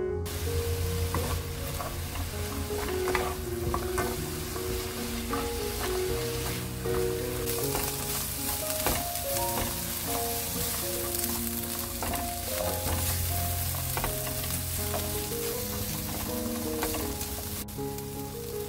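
Garlic cloves, walnuts and vegetables sizzling in oil in a nonstick pan on low heat while a spatula stirs them. Many light scrapes and taps of the spatula on the pan run through the sizzle.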